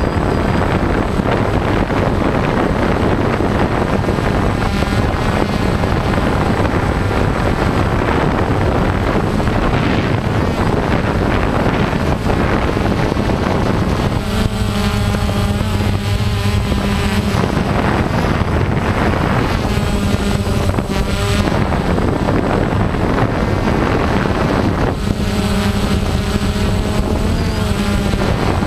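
Small multirotor drone's motors and propellers running steadily, heard from its onboard camera as a constant hum with wind rush. A higher motor whine swells three times, about halfway through, a little later and near the end.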